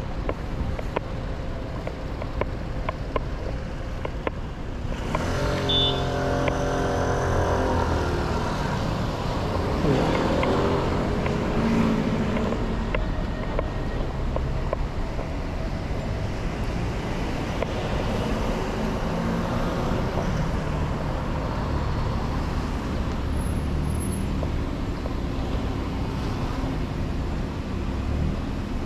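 City road traffic: a steady rumble of passing motor vehicles, with one louder engine going by about five to ten seconds in.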